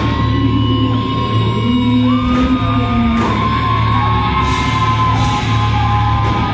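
Rock band playing live through a concert PA, heard from the crowd in a large hall: drums, bass and guitars with sustained notes that bend in pitch.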